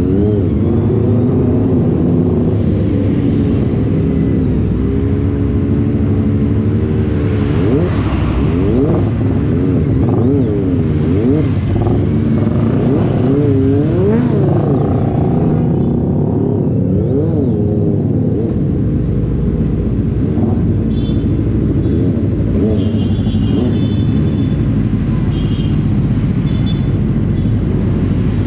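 Motorcycle engines idling and being revved again and again, the pitch sweeping up and down, from a Yamaha R15 fitted with an aftermarket exhaust meant to make it sound like a four-cylinder, among other bikes running nearby.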